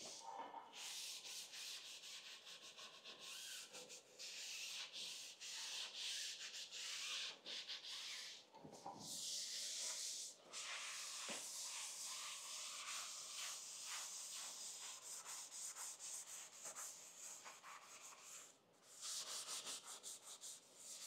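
Coarse abrasive pad scrubbed back and forth by hand over the oiled cast-iron table of a Felder K500 saw: a scratchy rubbing hiss in quick strokes, with a few short pauses.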